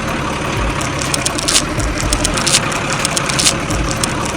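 An engine running steadily, with irregular clicks and low knocks through it.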